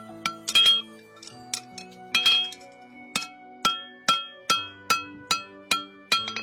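Hammer blows ringing on a steel horseshoe: a few uneven clinks, then a steady run of strikes about two a second, over background music.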